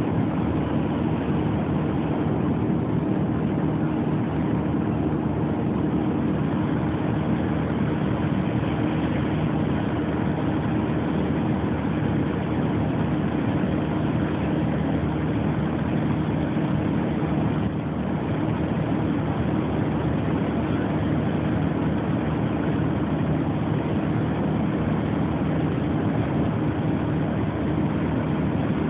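Light aircraft's engine and propeller droning steadily in level flight, heard from on board: an even hum at a couple of fixed pitches over a rushing noise, with no change in power.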